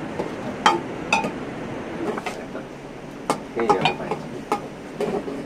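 Metal cookware and utensils clinking and knocking at irregular intervals, several strikes ringing briefly: aluminium pots worked with a ladle on the stove and a knife cutting potatoes over a steel bowl.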